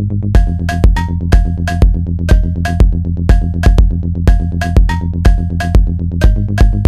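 Electronic music: a fast-pulsing synth bass, joined about a third of a second in by a drum-machine beat of loud hits, about two a second, each carrying a short pitched metallic note that moves between a few pitches.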